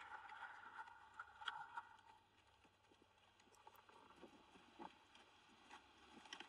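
Near silence, with a few faint, short taps about a second and a half in and again near the five-second mark.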